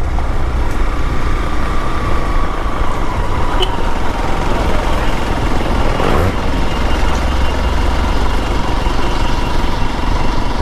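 Motorcycle engine running steadily at low speed over an off-road dirt trail, with a continuous low rumble and a single knock about six seconds in.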